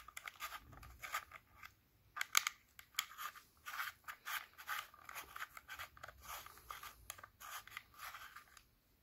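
L-shaped hex key turning the screws in the metal CO2 cartridge housing of a Crosman DPMS SBR BB rifle to loosen them: an irregular run of small clicks and scratches of metal on metal.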